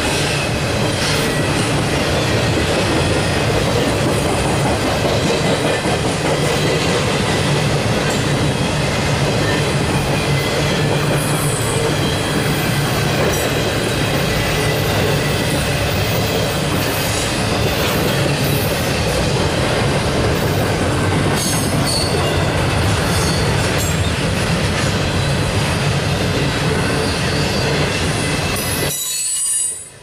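Intermodal freight cars loaded with trailers and containers rolling past: a steady rumble and clatter of steel wheels on the rail, with brief high wheel squeals now and then. The noise falls away abruptly near the end as the last cars go by.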